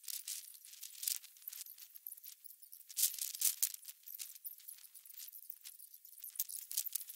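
Irregular crinkling and rustling of nylon tent fabric as it is handled and folded, with a louder flurry of crackles about three seconds in.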